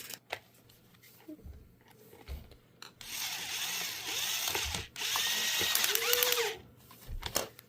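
Battery-powered toy power tool from a children's tool kit whirring in two runs of about two seconds each, with a brief break between them, after a few faint clicks.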